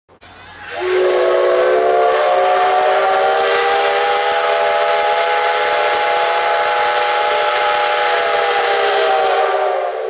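Steam locomotive whistle blowing one long blast of about nine seconds: a chord of several tones that slides up in pitch as it opens and sags as it shuts off, over a hiss of steam.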